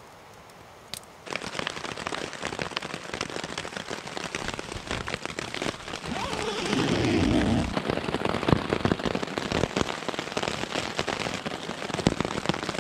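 Heavy rain beating on the fabric of a Lanshan 2 Pro single-wall tent, heard from inside as a dense, steady patter of drops. About six seconds in there is a louder, lower rustle for a second or two.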